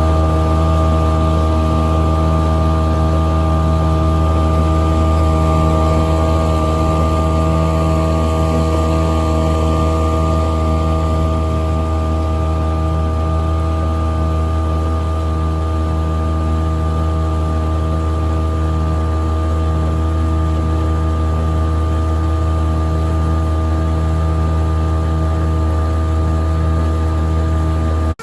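Mercury 3.3 hp two-stroke outboard motor running at a steady throttle, its pitch holding constant, with some hiss over it.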